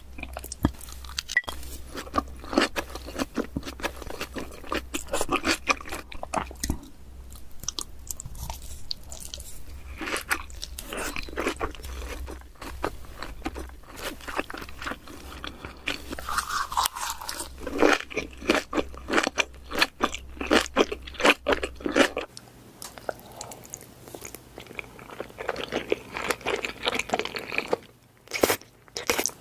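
Close-miked mukbang eating: loud crunching and chewing of big mouthfuls of food, bite after bite, with wet mouth sounds. A low steady hum underneath stops about three quarters of the way through.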